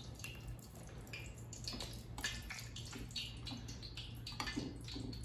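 Hands tossing buttermilk-soaked chicken thigh pieces around in a dish of cornstarch and flour dredge: soft, irregular patting and rustling, over a low steady hum.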